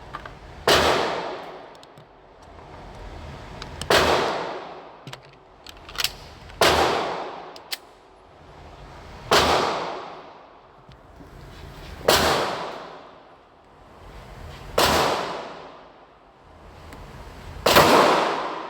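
Canik Mete MC9 Prime 9mm pistol firing seven single shots, evenly paced about one every two and a half to three seconds, each shot ringing out with a long echo. A couple of much fainter sharp pops fall between the shots.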